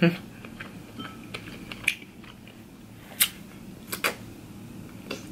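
Close-up eating sounds: scattered wet clicks and smacks of shrimp being bitten and chewed, with sharper clicks about two and three seconds in and a quick pair near four seconds.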